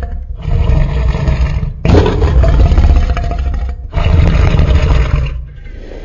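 Custom Tyrannosaurus rex roar sound effect, a blend of big-cat, elephant, slowed-down wolf and film dinosaur roars. Three deep roars come back to back with short breaks between them. The middle roar is the longest and loudest. The last one ends shortly before the close, leaving a lower rumble.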